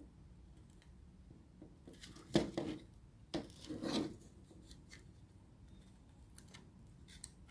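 Plastic parts of a computer mouse's shell being worked loose by hand: a few faint clicks and scraping rubs, mostly between about two and four seconds in.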